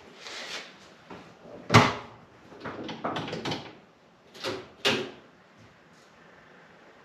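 A car door shutting with one heavy thud about two seconds in, among lighter knocks and clunks; the knocks stop after about five seconds.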